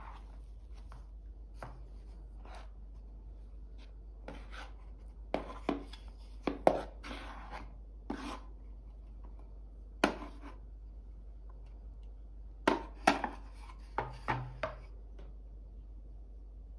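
Wooden spoon stirring flour into a sticky dough in a ceramic bowl: irregular knocks and scrapes of the spoon against the bowl, coming in clusters.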